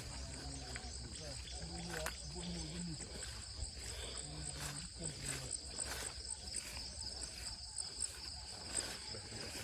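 Insects calling steadily with a continuous high-pitched trill, and faint distant speech in the first half.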